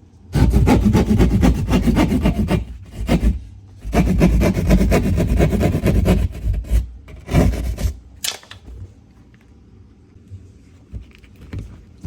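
Rapid rasping, scraping strokes against wood in several loud bursts, the longest about two seconds, stopping after about eight seconds. A few small knocks follow near the end.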